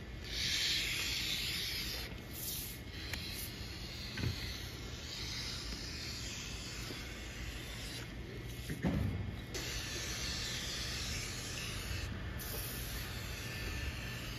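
Hands and a small hand-held vinyl cutter sliding and rubbing over a sheet of vinyl wrap on its paper backing, a rustling hiss that comes and goes. One soft thump about nine seconds in.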